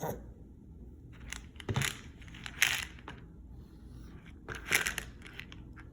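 A few short, irregular rustling and clicking handling noises, like something small being grabbed and fumbled.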